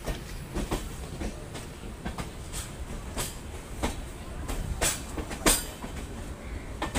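Passenger train running on the rails: a steady low rumble with sharp clicks as the wheels pass over rail joints, a dozen or so at uneven spacing, the loudest about five and a half seconds in.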